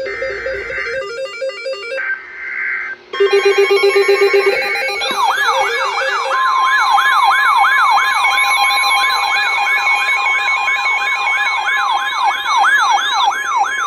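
Electronic emergency alert tones: a few seconds of patterned beeping tones, then a fast electronic siren warble sweeping up and down about twice a second. From about six seconds in, a steady single pitch, the NOAA Weather Radio alert tone, sounds under the warble.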